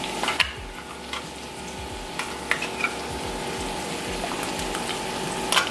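Carrots and vegetables sizzling in a frying pan, with a few sharp clinks of a metal spoon against the can and pan as thick coconut milk is scooped in.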